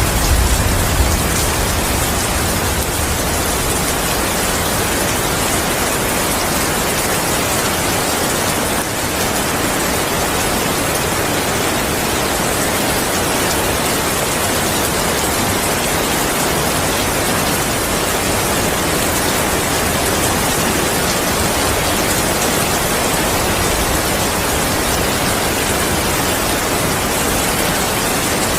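Steady heavy rain, an even hiss of many drops, with the low rumble of thunder dying away in the first second or so.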